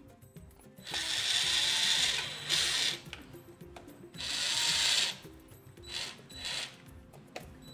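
Corded electric drill driving in the screws of a wall socket's faceplate. It runs in two main bursts, about a second and a half starting a second in and about a second starting four seconds in, with brief blips of the trigger between and after.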